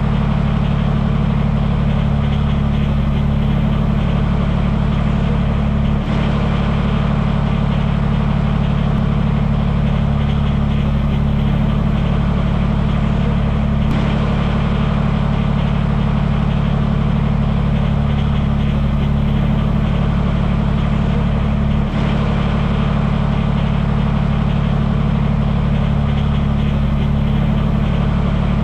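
Engine idling steadily with a deep, low hum, the same stretch of about eight seconds repeating over and over as a loop.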